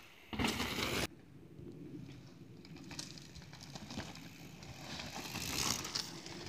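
Mountain bike riding fast down a dirt forest trail: tyres rolling over dirt and twigs, with clicking and rattling from the bike. A loud rushing burst comes about half a second in and lasts under a second. The riding noise grows louder towards the end.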